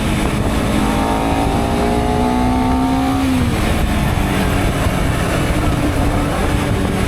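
Honda CBR250RR motorcycle engine running under way, its pitch climbing slowly and then dropping off about three seconds in, over a steady rush of road and wind noise.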